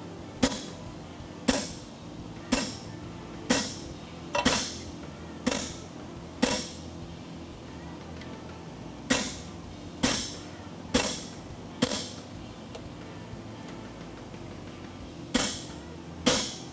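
Sledgehammer blows on a handled top tool driving into a red-hot steel bar on an anvil, cutting in the blade of a draft horseshoe fuller. Sharp ringing clanks about a second apart, in three runs with pauses of a few seconds between.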